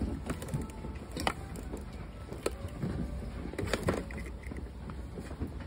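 Handling noise: scattered light clicks and rustles of plastic toys in mesh net bags being touched in a wire basket, over a low steady rumble of store background.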